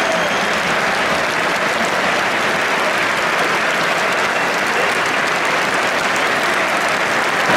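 Large stadium crowd applauding steadily, a dense patter of many hands clapping.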